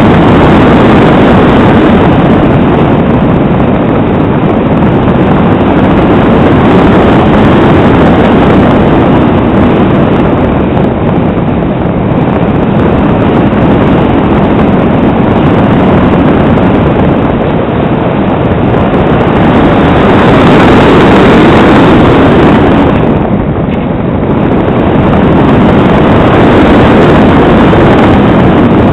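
Airflow rushing over the microphone of a camera mounted on an aircraft in an unpowered glide: a loud, steady rush with no engine note, swelling and easing a few times as the airspeed changes.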